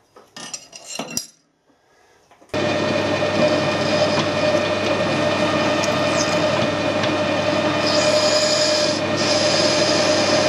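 A few metal clinks, then about two and a half seconds in a metal lathe starts and runs steadily with a strong steady hum, its spindle turning a workpiece held in an ER40 collet chuck while a carbide insert tool cuts it.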